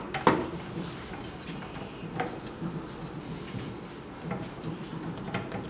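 Hands pressing the edge of a silicone membrane into the frame of a 3D vacuum sublimation heat press: one sharp click just after the start, then faint scattered ticks and rubbing.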